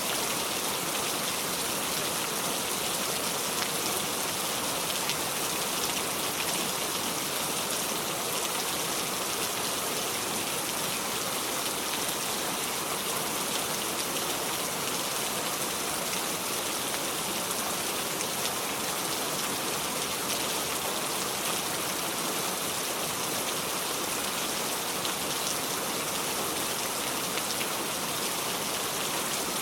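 Steady rain falling and pattering on a surface, an even rushing hiss with many fine drop ticks, without thunder.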